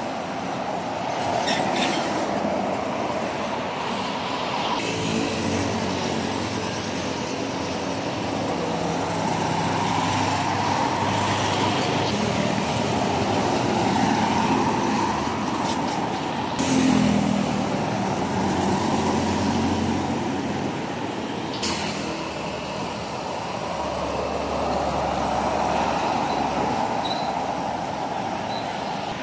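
Heavy diesel trucks and other road traffic passing on a busy multi-lane road: engine rumble and tyre noise swelling and fading as each vehicle goes by.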